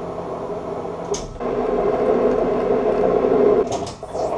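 Metal lathe running while cutting a thread on an aluminium part: a steady machine hum with held tones, two short sharp clicks, and a brief dip in the hum near the end as the spindle is stopped.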